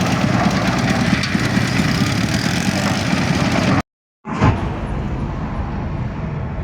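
Self-loading concrete mixer's engine running loudly. About four seconds in the sound cuts out for a moment, then a thump and a quieter engine running steadily.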